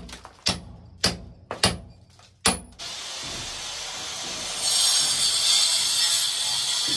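Four hammer blows on a chisel cutting into a brick wall. Then, about three seconds in, an angle grinder starts cutting into a plastered wall, its hiss growing louder and harsher near five seconds in.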